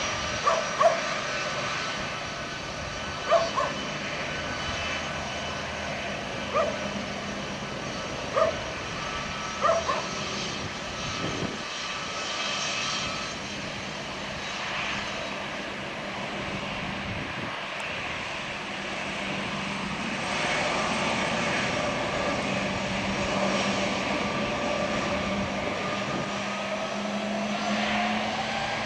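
Boeing 757-200 jet engines running with a steady whine as the airliner taxis; over the last several seconds the whine rises in pitch and grows louder as the engines spool up. A dog barks several times in the first ten seconds or so.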